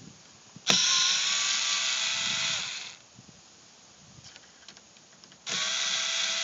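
Handheld power screwdriver running twice, a run of about two seconds starting under a second in and a shorter one near the end, as it backs out a small screw holding the convertible top's plastic trim.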